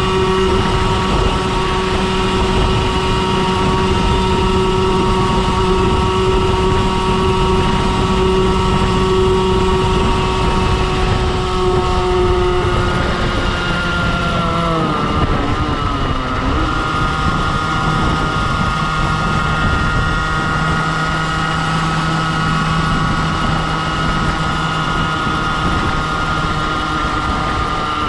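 Beta RR50's 50cc two-stroke engine running hard at speed with its rev limiter disconnected, over wind rush on the microphone. About halfway through, the engine note drops, then settles steady again.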